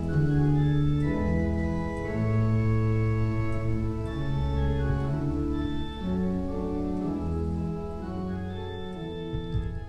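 Organ playing slow, sustained chords, the harmony shifting every second or so and the volume easing down near the end.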